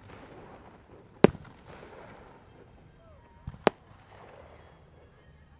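Aerial fireworks shells bursting: one sharp bang a little over a second in, then a weaker bang and a sharp one in quick succession about three and a half seconds in, each trailing off in a fading crackle.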